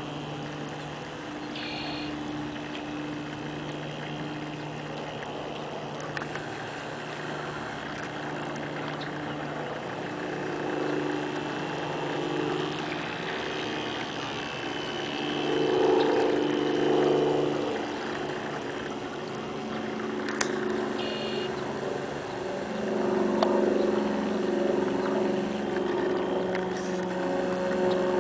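Motor of a 32-inch RC model destroyer running on the water: a steady humming whine whose pitch shifts with the throttle, swelling louder about halfway through and again in the last few seconds as the boat passes near.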